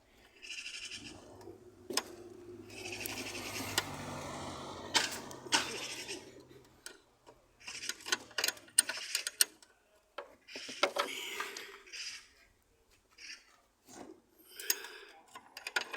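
Hand spanners and a ratchet working steel nuts and bolts in a car's engine bay: scattered metallic clicks and clanks, a quick cluster of them about eight to nine seconds in, with a longer stretch of rustling, straining noise in the first half.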